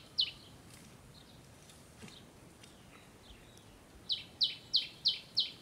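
Small bird calling: short, sharp, high notes, one just after the start and then a run of six at about three a second from about four seconds in, with fainter calls between.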